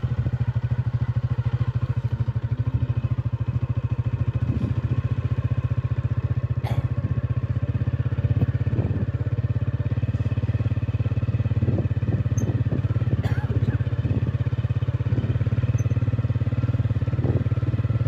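Small motorcycle engine running at a steady pace while riding, a constant low hum of fast even firing pulses. Two short sharp clicks come through, about a third and two thirds of the way in.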